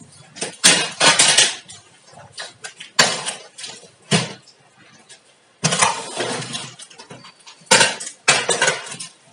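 Plastic-wrapped cardboard box being handled and tipped onto its side on a tile floor: a few irregular rustling, scraping bursts with short quiet gaps.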